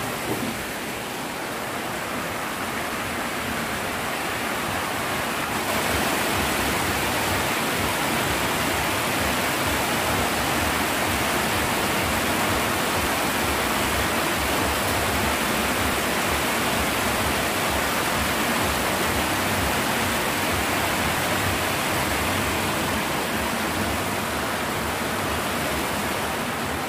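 Heavy rain pouring down in a steady, even rush, getting louder about six seconds in.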